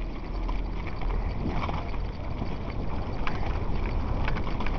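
Mountain bike running down a loose, rocky gravel trail: tyres crunching over stones and the bike clattering in irregular knocks, over steady wind rumble on the microphone.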